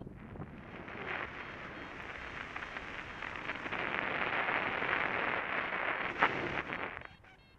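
Wind rushing over the camera microphone during a paraglider flight: a steady hiss that builds through the middle and cuts off about seven seconds in.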